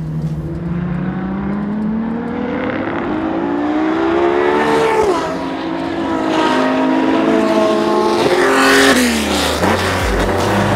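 Ferrari LaFerrari's V12 race engine accelerating hard, its note climbing steeply. The pitch drops sharply about five seconds in, climbs again, and drops once more near the nine-second mark.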